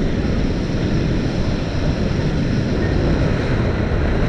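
Steady rush of wind and water from a motorboat under way, picked up by a camera mounted on the hull, with wind buffeting the microphone.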